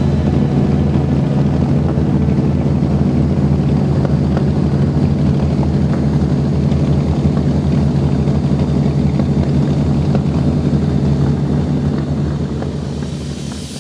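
A deep, steady engine rumble, fading near the end.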